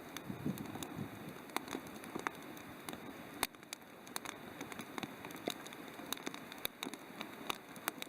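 Wood campfire crackling: irregular sharp pops and snaps over a soft steady hiss.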